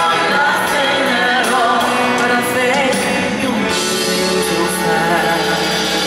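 A woman singing live into a microphone over instrumental accompaniment; about four seconds in, her wavering melody gives way to steady held notes.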